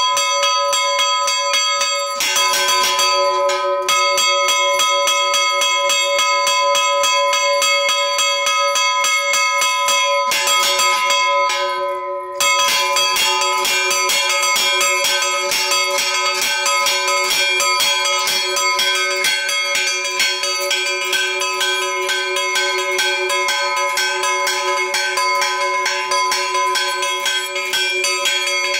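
Two church bells rung by hand, their clappers pulled on chains, struck in a rapid, continuous peal on two notes. The ringing falters briefly about twelve seconds in, then carries on.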